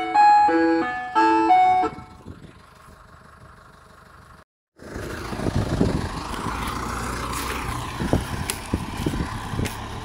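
Ice cream van's chime playing a tune, which stops about two seconds in. From about halfway, the van's engine runs as it pulls away, with scattered knocks.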